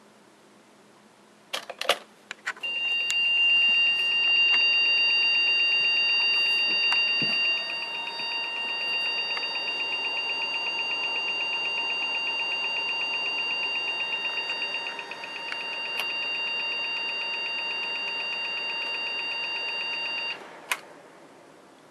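A few keyboard key clicks, then an EVGA P55-SLI motherboard's beeper sounds one long, rapidly pulsing high-pitched beep as the computer wakes from sleep: an anomaly the owner reports to the maker. It cuts off suddenly near the end, followed by a single click.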